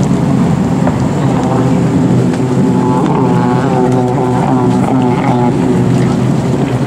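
Several racing jet skis running at speed across the water: a steady engine sound of several pitches, wavering up and down around the middle.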